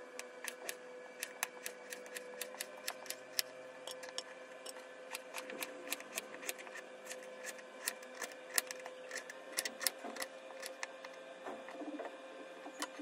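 Kitchen knife slicing a raw peeled potato on a cutting board: irregular sharp taps of the blade striking the board, a few a second, over a steady faint hum.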